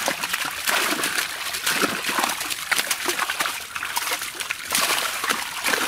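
Fish flapping and splashing in shallow water inside a landed cast net, with irregular slaps and sloshing as hands grab at them.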